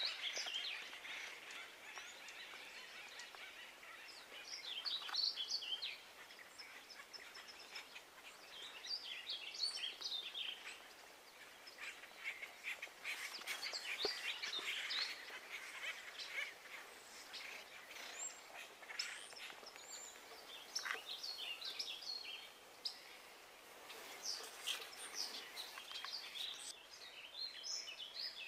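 Small birds chirping in scattered bursts, several quick calls at a time, over a faint steady outdoor hiss.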